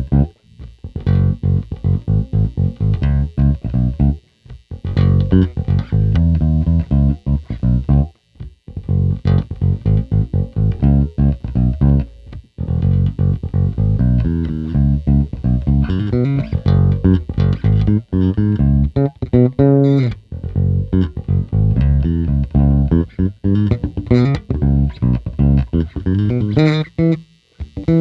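Fender Player Series Mustang Bass PJ electric bass played solo: a run of quick plucked notes in phrases, with brief breaks about every four seconds early on and higher notes around the middle.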